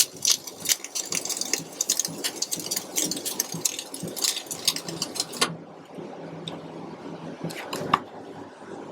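Flux-core wire welding arc on a vertical-up run: a dense, spitting crackle that cuts off suddenly about five and a half seconds in. After it, a low hum and a couple of clicks near the end.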